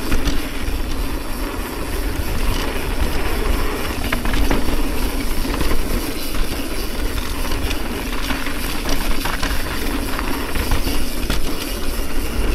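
Mountain bike rolling along a dirt trail: a steady rumble of the tyres on the ground and the rattle of the bike, with a few sharper clacks.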